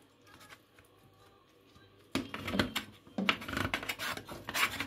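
Metal spatula cutting down through baked cheesy pasta and scraping against the pot, a few rough scrapes and knocks starting about two seconds in.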